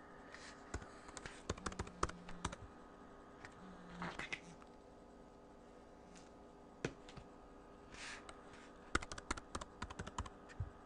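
Computer keyboard typing: scattered keystrokes, with a quick run of keys near the end.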